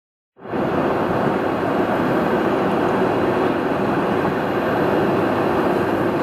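Steady road and engine noise heard inside a moving car, an even rushing hum that starts about half a second in after a moment of silence.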